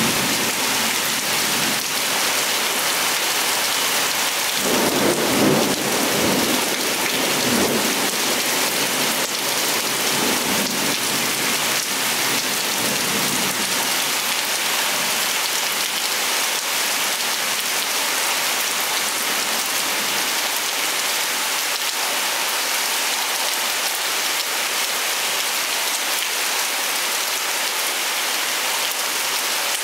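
Heavy rain falling steadily. A roll of thunder rumbles low about four to five seconds in and dies away over several seconds.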